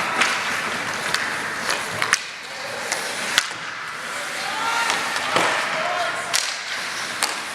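Ice hockey play in a rink: a steady scrape of skates on ice with sharp clacks of sticks and puck every second or so, and a couple of distant shouts about five seconds in.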